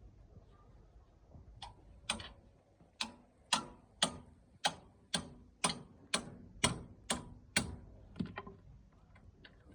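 A series of sharp, evenly spaced clicks or taps, about two a second, each dying away quickly. They start about one and a half seconds in and stop near the end.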